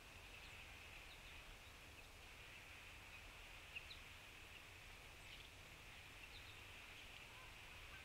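Near silence with faint, scattered short bird chirps over a steady low hiss, and a single brief tick about four seconds in.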